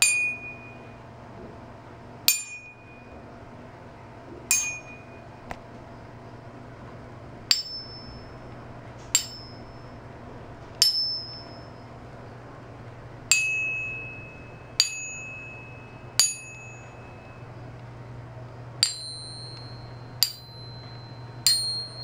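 Silver and gold bullion bars hanging on string, struck one at a time: twelve sharp metallic taps in four sets of three, each tap ringing briefly with a clear bell-like tone. Each set keeps its own pitch: a lower ring, then a much higher one, then a lower one again, then a fairly high one, as each bar sings at its own note.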